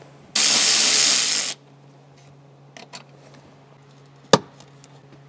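12-volt cordless ratchet running for a little over a second, spinning out a T50 Torx seat bolt, followed a few seconds later by one sharp click.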